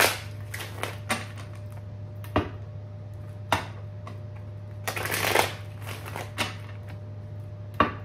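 A tarot card deck being shuffled by hand: irregular clicks and rustles of cards slapping and sliding together, with a longer rush of cards about five seconds in. A steady low hum runs underneath.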